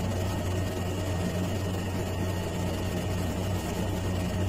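A steady low hum over a faint hiss, the room's background noise, with no keystrokes or clicks standing out.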